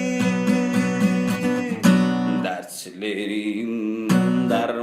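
Acoustic guitar strummed in a steady rhythm, accompanying a song between sung lines, with the singing voice coming back near the end.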